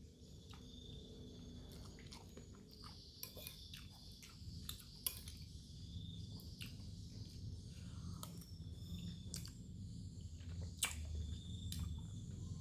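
Close-miked mouth sounds of someone eating chicken noodles with meatballs: chewing with many scattered wet clicks and smacks, a sharper click about five seconds in and another near eleven seconds.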